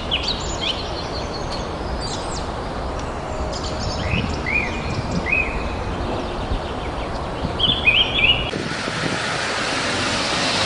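Outdoor street background noise with small birds chirping in short groups of quick high chirps. About eight seconds in, the chirps stop and a louder, steady hiss of street noise takes over.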